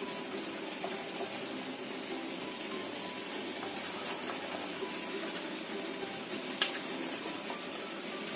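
Water boiling in the base of a steamer pot, a steady hiss, with a single sharp tap about two-thirds of the way through.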